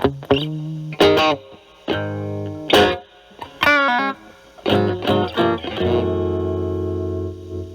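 Stratocaster electric guitar played through a Metal Pedals Rawhide overdrive pedal set at about gain 7–8 into a Marshall Valvestate's clean channel: an overdriven blues-style phrase of picked single notes and short chords. About six seconds in it ends on a sustained chord left to ring and fade.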